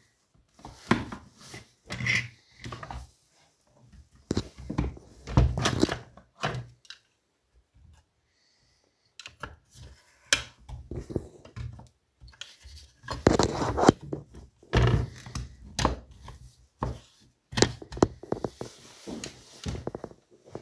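Irregular knocks, clunks and scrapes of plastic and metal parts as a Partner 410 chainsaw is taken apart by hand to reach its carburettor, with a quiet pause of about two seconds near the middle.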